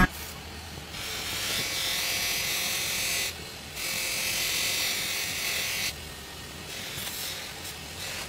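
Bench polishing motor running with a sword's handle and steel blade held against its spinning buffing wheel: a steady low hum under a hissing rub. The rub comes in two stretches of about two seconds with a short break between them, then gets softer.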